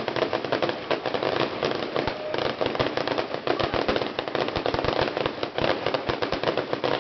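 Fireworks going off in a rapid, continuous crackle of many small pops, with a few deeper thumps mixed in.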